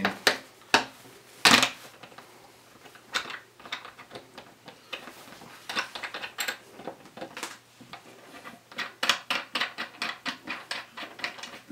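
Small plastic lid screws clicking and rattling as they are handled and screwed into the corners of a plastic enclosure lid, with a sharp knock about a second and a half in and a quick run of clicks near the end.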